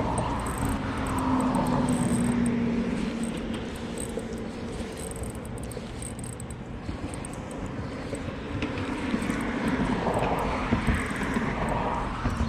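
Engine noise of passing motor traffic, a steady hum that swells, fades and swells again.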